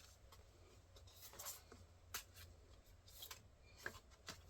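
Near silence, with a few faint ticks and soft rustles of photo cards and paper packaging being handled.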